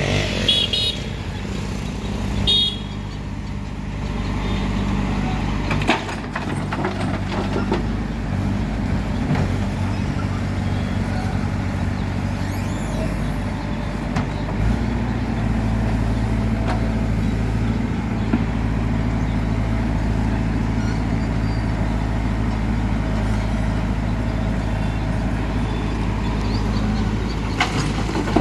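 Heavy diesel engine of working machinery running steadily, with a few sharp knocks.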